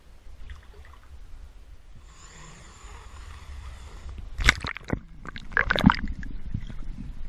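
Water sloshing and gurgling around a swimmer's camera at the surface, with a steady low rumble. Between about four and six seconds come several loud splashes as the camera breaks the surface and goes under.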